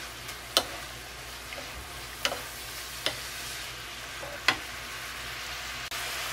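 Shrimp, squid, beef and carrots sizzling in sauce in a nonstick frying pan, stirred with a wooden slotted spoon that knocks sharply against the pan four times. The sizzle gets slightly louder near the end.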